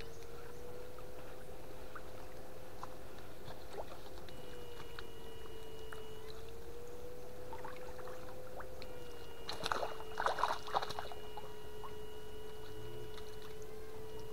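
Electric fish shocker whining steadily at a mid pitch, wavering slightly, with fainter higher tones cutting in and out. A short run of splashes about ten seconds in.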